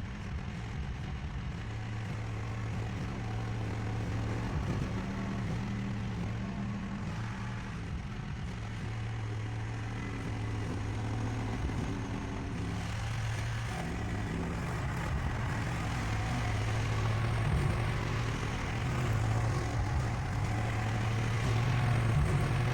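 Chinese mini excavator's engine running steadily while its dozer blade pushes snow, a little louder near the end.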